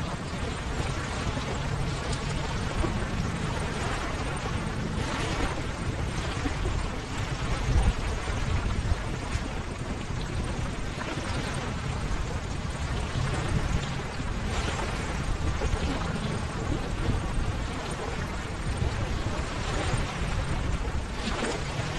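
Ocean waves washing onto a shore: a steady rush of surf that swells as a wave breaks every few seconds.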